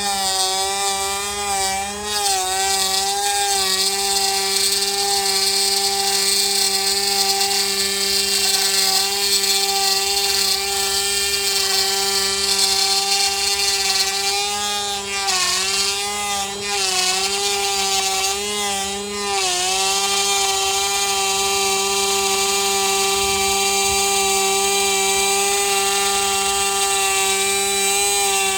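An electric power tool's motor runs with a steady high whine. Its pitch dips briefly several times as it bogs under load cutting wood.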